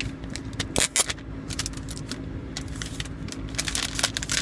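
Clear plastic wrap being peeled off a new iPhone box, crinkling and crackling in quick, irregular rustles, loudest about a second in and again near the end.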